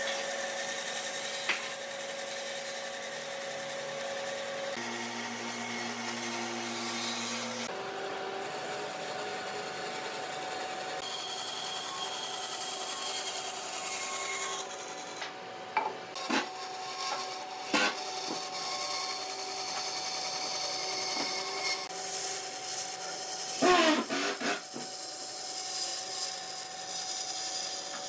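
Electric power tools running on wood, a steady motor hum whose pitch jumps twice early on, as if between edited shots, with a few short sharp knocks. The loudest moment is a brief gliding, scraping sound about three-quarters of the way in.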